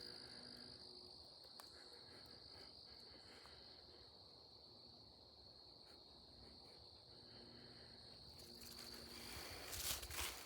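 Steady, faint, high-pitched insect chorus. A few footsteps on rocky ground come in near the end.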